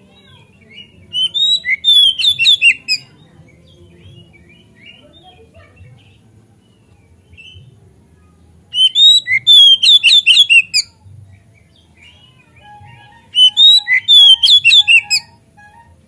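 Oriental magpie-robin (kacer) singing in three loud bursts of rapid, high, sliding notes, each about two seconds long: about a second in, near the middle, and near the end. Fainter scattered bird notes fill the gaps between the bursts.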